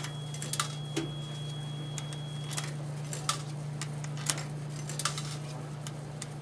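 Quarters being pushed one by one into the coin slot of a coin-operated washing machine, a series of sharp metallic clicks and clinks about two a second, over a steady low hum.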